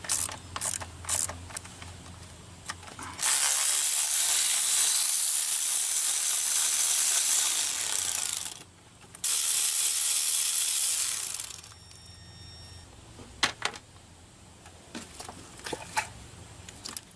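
A hand ratchet clicks on the coil-pack bolts of a Ford 5.4L V8. Two long, loud blasts of compressed-air hiss follow, the first about five seconds long and the second about two and a half, with a short break between. More scattered ratchet clicks and tool knocks come near the end.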